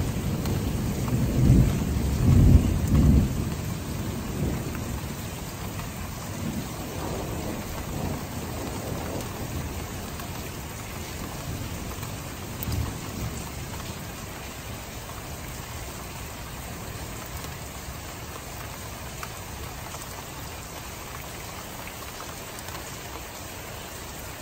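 Thunder rumbling, loudest in the first few seconds and then dying away over about ten seconds, with a smaller rumble partway through, over steady rain.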